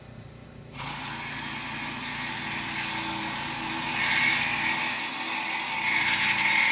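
A handheld power tool cutting through a mobile home's steel frame: a harsh, steady hiss starts abruptly about a second in and gets louder twice, first past the middle and again near the end, over a faint motor hum.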